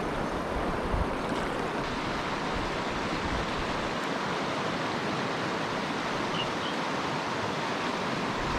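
Steady rushing of a fast stream running high with spring runoff.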